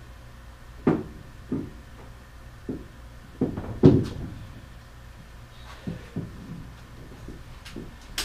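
A series of irregular woody knocks and creaks, about eight in all, the loudest about four seconds in: the clamped bar, 2x4 bracing and workbench of a bolt-torquing rig shifting and settling under heavy load.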